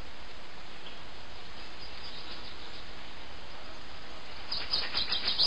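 Outdoor ambience: a steady hiss of background noise, with a quick run of bird chirps near the end.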